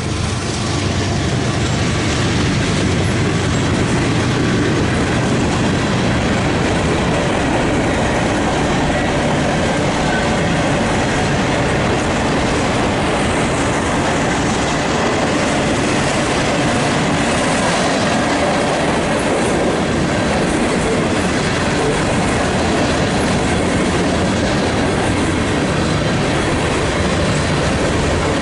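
A long freight train's cars rolling past close by: steel wheels running on the rails in a loud, steady rumble and clatter.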